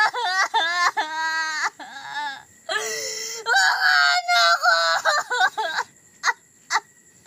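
A young woman wailing in anguish: long, high, wavering cries that break and catch, trailing off into a few short gasping sobs near the end.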